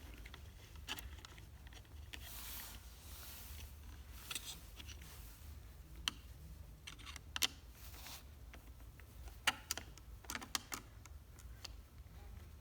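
Faint, scattered clicks and scrapes of a screwdriver and wire at a garage door wall control's terminal screw, as the white wire is fastened and the screw tightened.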